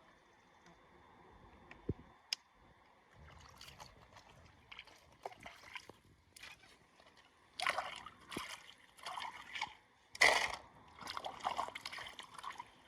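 Shallow river water splashing and sloshing in irregular bursts as a small RC model car is washed in it, building up after a few seconds with the loudest splash about ten seconds in. Two light clicks come about two seconds in.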